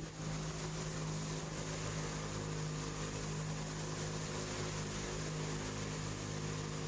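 Motorboat engine running steadily, an even hum with a rushing noise over it.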